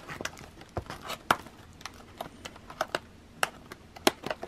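Thin cardboard box being handled and its lid flap folded shut and tucked in: a string of light, irregular clicks and taps.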